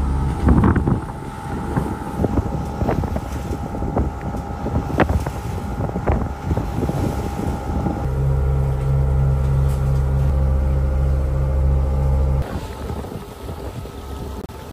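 Yacht's inboard diesel engine running steadily while motoring. There are knocks, rattles and wind on the microphone in the first half. The engine hum drops away suddenly about twelve seconds in.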